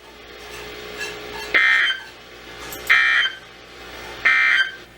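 Three short buzzy two-tone digital data bursts about 1.4 s apart: the Emergency Alert System SAME end-of-message code, which marks the end of the warning broadcast.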